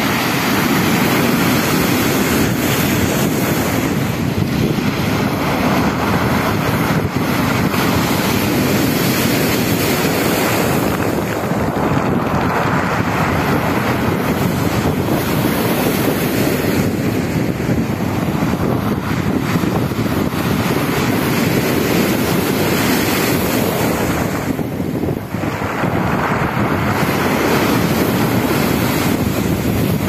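Black Sea surf breaking and washing up over a pebble beach in repeated swells, with wind buffeting the microphone.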